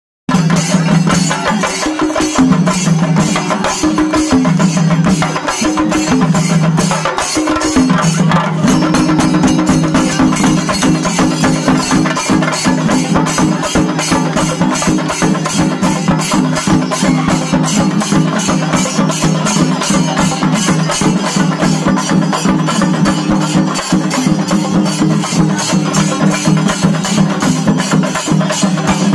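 Singarimelam: a group of chenda drums played in fast, dense, continuous strokes with cymbals. Under the strokes runs a steady low tone that breaks off several times in the first eight seconds and then holds without a break.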